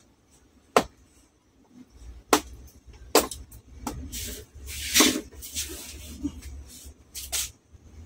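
Clips of a Samsung TV's front frame snapping loose as the frame is pried off the panel edge: a series of sharp clicks, about six, with a longer scraping rasp midway.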